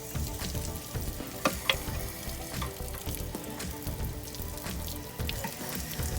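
Water splattering out of an RV water heater's drain as the tank is flushed, still running discoloured with rust sediment. A couple of sharp clicks come about a second and a half in.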